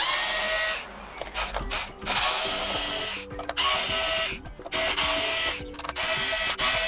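Cordless inline electric screwdriver whirring in repeated bursts of about a second each, with short pauses between, as it backs screws out of a hoverboard's plastic cover.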